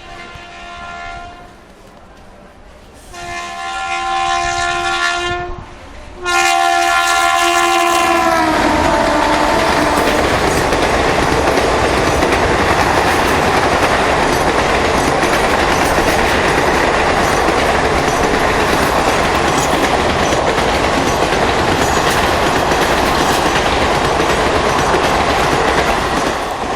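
WAP7 electric locomotive's multi-tone air horn honking: a short blast, a long blast, then a third whose pitch drops as the locomotive passes close at speed. The express coaches then rush past loudly and steadily, easing off near the end.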